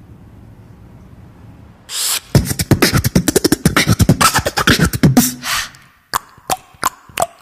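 Beatboxing: mouth-made drum hits and clicks. After a faint hum, a fast, dense run of beats starts about two seconds in, breaks off near six seconds, and gives way to a few sparse, separate hits.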